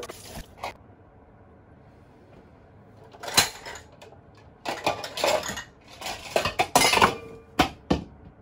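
Ceramic dishes clattering: bowls and mugs knocked together and set down as they are taken from a wire dish rack. It starts about three seconds in as a run of sharp clinks and clatters.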